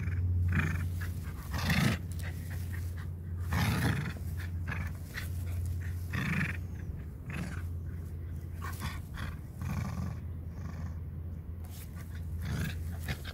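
Small Maltese cross Shih Tzu growling in play while tugging on a rope toy, in short rough bursts every second or two over a steady low rumble.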